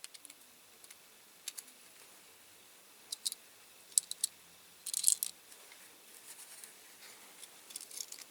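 Light, sharp clicks and taps of small plastic and metal model parts being handled and pressed into place, scattered singly and in a small cluster about five seconds in, with faint rustling near the end.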